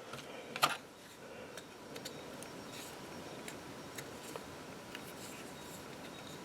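Small objects being handled on a tabletop: one sharp click just over half a second in, then faint scattered ticks over low room hiss.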